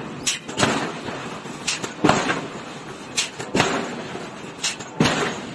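Forging hammer striking a red-hot steel billet on the anvil, upsetting it: four heavy blows about a second and a half apart, each just after a lighter knock.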